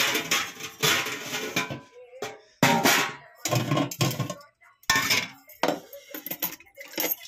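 Handling noise from a phone's microphone rubbing and knocking against clothing as it is carried about, in loud broken bursts of rustle and scrape with short gaps between them.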